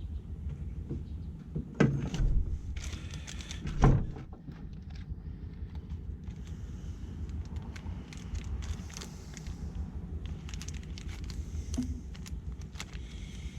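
Hands working at a car battery's terminals and cables: small metallic clicks and clinks, with two louder knocks about two and four seconds in.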